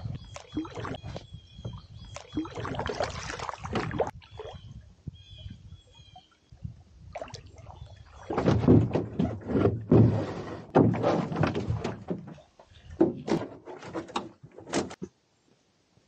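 A canoe being handled and carried over a portage trail: irregular knocks, thuds and scrapes of the hull, loudest in a dense run of thumps and scraping a little past the middle.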